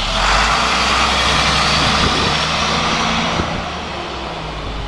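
Diesel engine of an International 4300 flatbed work truck pulling away. It swells about a third of a second in, then fades as the truck moves off.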